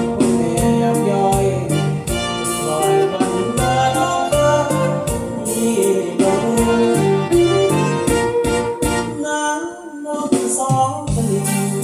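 Acoustic guitar played along to a full band backing track with a steady drum beat and a melody line. The bass and drums drop out briefly about nine seconds in, then the beat comes back.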